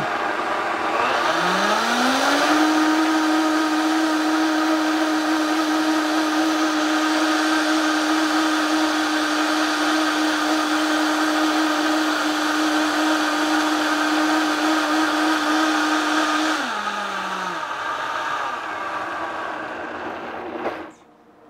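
Vitamix blender motor running, churning a thick chocolate egg-white pudding mix. Its whine rises as it speeds up about two seconds in, holds steady at high speed, then drops and winds down to a stop near the end.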